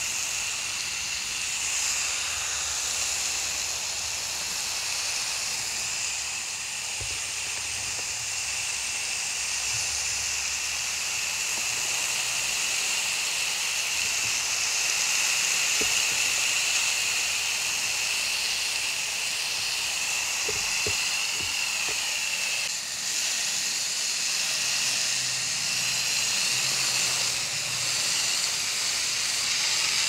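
Garden hose with a hose-end sprayer bottle spraying water and coil cleaner onto the aluminium fins of a Bryant outdoor air-conditioner condenser coil: a steady hiss of the jet spattering on the fins.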